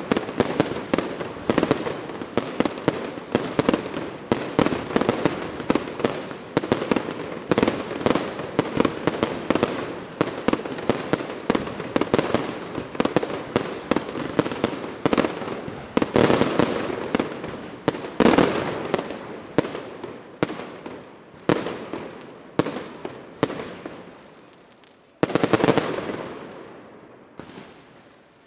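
Fireworks display: a dense, rapid barrage of bangs that thins to separate bursts, each trailing off, then one more short, dense flurry near the end before fading.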